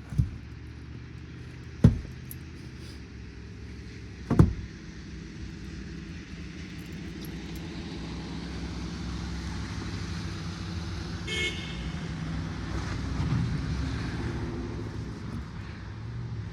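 An engine running steadily, with three sharp knocks in the first five seconds.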